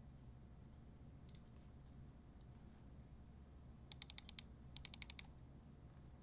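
Typing on a Womier/Gamakay K87 tenkeyless mechanical keyboard with lubed Drop Holy Panda tactile switches. A single keystroke comes about a second in, then two quick runs of about half a dozen keystrokes each around four and five seconds in.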